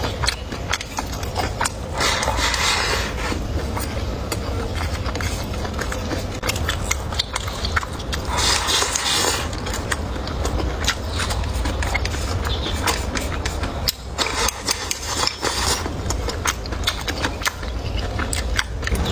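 A person eating close to the microphone, chewing and crunching food with many small clicks. Two brief louder rasping noises come about two and eight seconds in, over a steady low hum.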